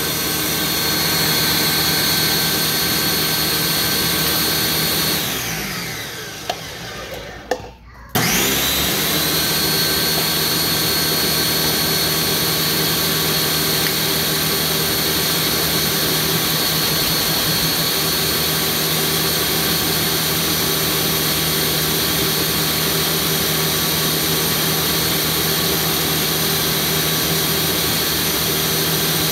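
Countertop blender motor running steadily as it purées a full jar of green smoothie, the final blend. About five seconds in the motor winds down and stops, with a couple of clicks, then spins back up about three seconds later and runs steadily again.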